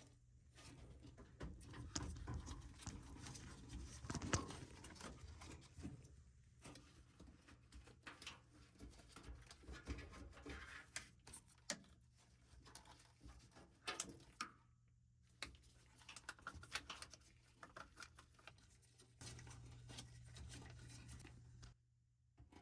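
Faint, irregular clicks, taps and rustling from parts and tools being handled during washer drain pump work.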